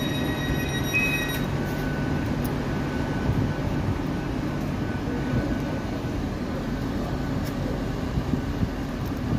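GWR Class 800 bi-mode train standing at the platform with its underfloor diesel engines running: a steady low rumble. A steady high-pitched tone cuts off about a second and a half in.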